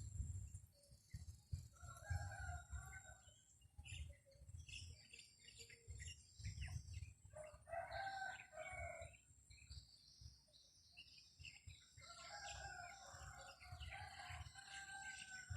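Rooster crowing about three times, faint, with a constant low wind rumble on the microphone.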